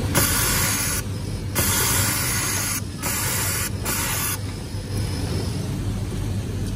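Industrial overlock sewing machine running in four short hissing bursts, each about half a second to a second long, over a steady low hum. The bursts stop a little over four seconds in.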